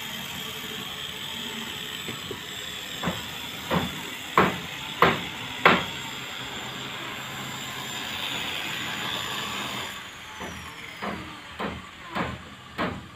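Hammer blows on wood, a run of five evenly spaced strikes a little over half a second apart, then another run of strikes near the end. Under them a steady hiss and a high whine that drops away about ten seconds in.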